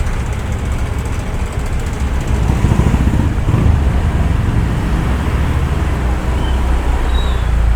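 Steady low rumble of slow-moving traffic and a car's engine and road noise, heard from inside the car.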